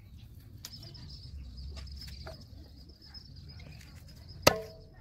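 A knife cutting up a raw chicken, with small cutting and scraping sounds, then one sharp chop through the meat onto a wooden chopping block about four and a half seconds in, followed by a brief metallic ring.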